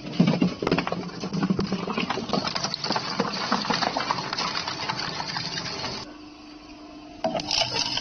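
Twin-shaft shredder tearing up a plastic jerrycan, a dense run of irregular cracking and crunching as the blades bite into the plastic. About six seconds in it drops to a quieter running sound, and a little after seven seconds loud crunching starts again.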